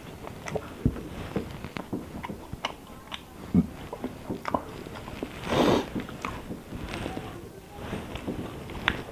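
A person eating by hand: chewing and biting food, with scattered small clicks and wet mixing sounds of fingers working rice on a plate. A louder noise of about half a second comes a little past the middle.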